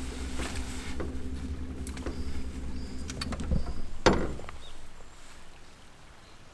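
A low, steady motor hum with a few light clicks over it, which stops about four seconds in right after one louder knock; only faint outdoor background remains after that.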